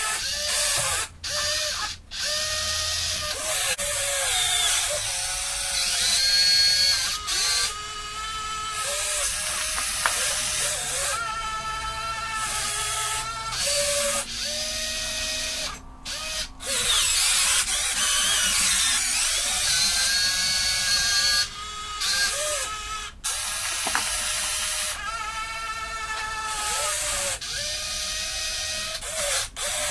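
1:14 scale RC Caterpillar 330D excavator working, its small electric motors and gearboxes whining in a string of short runs whose pitch rises and falls as the boom, arm and bucket move, with brief pauses between moves.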